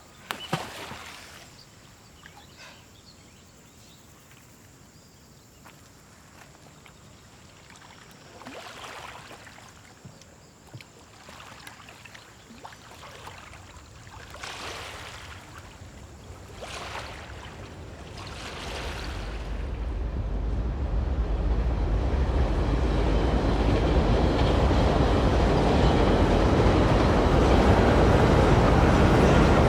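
A train approaching. Its rumble builds up from about two-thirds of the way through to a loud, steady noise. Before that there is a single sharp knock near the start and a few soft swells of sound.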